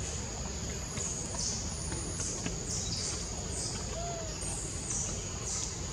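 Forest ambience: a high-pitched chirping call repeating about twice a second over a steady high-pitched drone, with a low, even background rumble.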